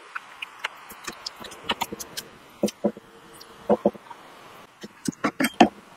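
Irregular metallic clicks and knocks of small engine parts and tools being handled and set down, with a cluster of louder knocks near the end.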